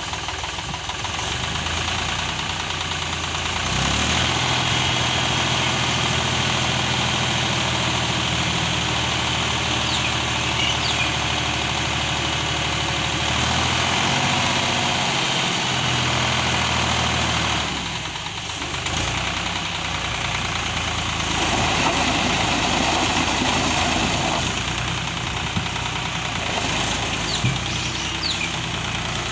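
Mahindra 453 tractor's diesel engine running. About four seconds in it is held at a higher, steady speed, stepping up again after about ten more seconds, while its hydraulics raise the loaded tipping trolley's bed. It drops back near the middle and rises again briefly.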